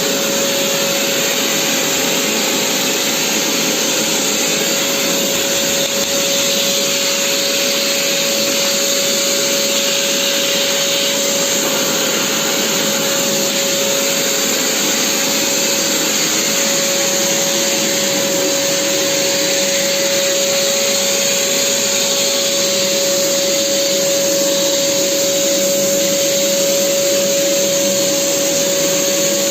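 Vacuum cleaner running steadily, a constant rushing noise with a steady whine through it.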